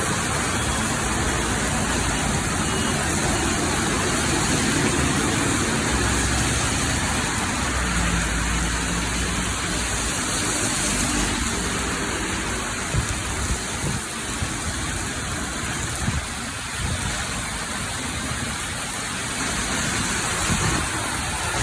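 Heavy rain pouring down in a steady hiss, with a low rumble underneath and a few sharper patters in the second half.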